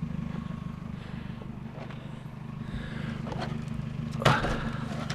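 Vehicle engine running steadily at a constant pitch, with a short, sharp, loud sound about four seconds in.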